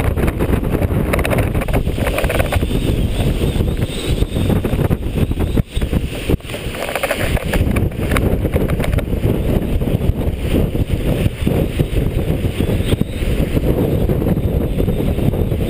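Wind buffeting the microphone over the rush and splash of white water along a heeled sailboat's hull as it sails fast through choppy waves.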